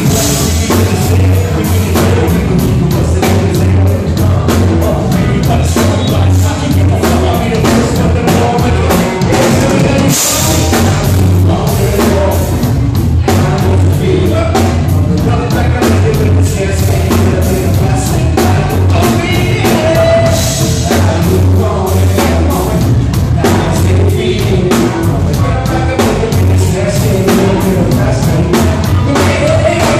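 Live rock band playing loud: a drum kit with a steady beat and cymbals close by, electric guitar and a singer.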